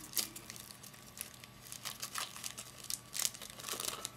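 Foil wrapper of a 2008 Topps Chrome baseball card pack crinkling and tearing as it is opened, in a run of irregular crackles, loudest just after the start and again about three seconds in.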